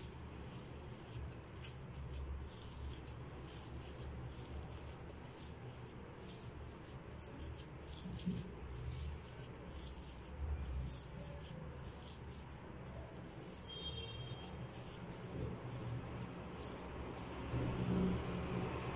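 Hands rubbing butter into coarse semolina in a glass bowl, a soft, steady rubbing.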